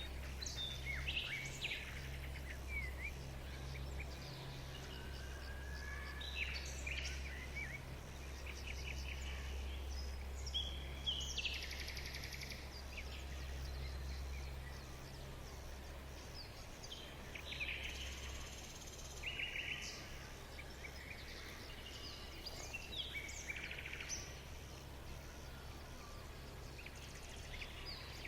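Small birds chirping and trilling on and off, short high calls scattered throughout, over a steady low hum.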